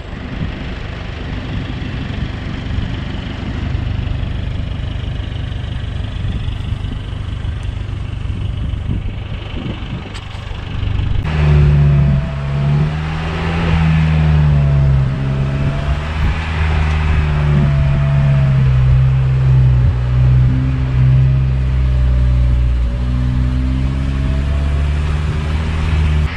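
Off-road 4x4 vehicle driving a rough trail, a low rumbling ride noise at first. About eleven seconds in, a louder engine comes in, its pitch rising and falling again and again as it revs under load.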